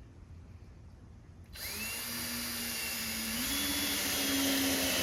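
Cordless screw gun driving a drywall screw into the wooden workbench frame: the motor starts about a second and a half in and whines steadily, its pitch stepping up slightly partway through.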